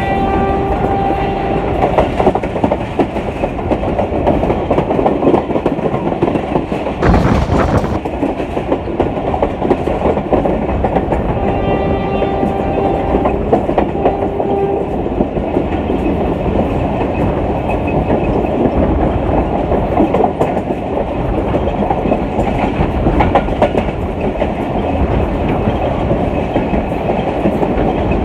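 Steady rumble and clickety-clack of a moving passenger train's wheels on the rails, heard from inside a coach, with a brief louder clatter about seven seconds in. The Hitachi HBU-20 locomotive's horn is sounding at the start and stops about a second in. It sounds again about twelve seconds in, a long blast followed by a short one.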